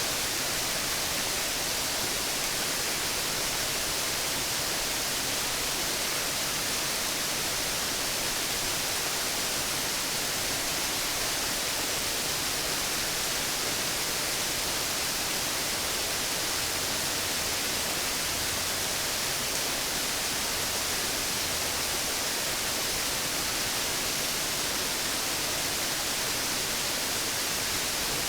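Rushing water of a rain-swollen waterfall: a steady, even hiss with no break or change.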